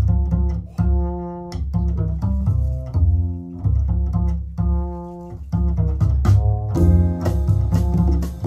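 Jazz played back through hi-fi floorstanding loudspeakers, led by deep plucked double bass notes that change every half second or so, with more instruments filling in near the end.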